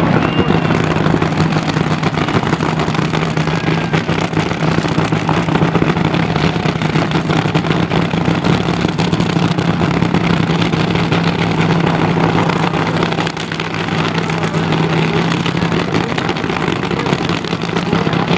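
Supercharged nitromethane fuel-altered drag racing engine idling with a loud, steady, rough note, dipping briefly about two-thirds of the way through.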